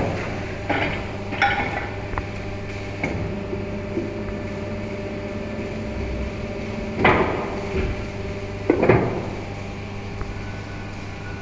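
PVC rain boot injection molding machine running: a steady low machine hum with scattered metallic clanks and short hisses, the loudest two about seven and nine seconds in.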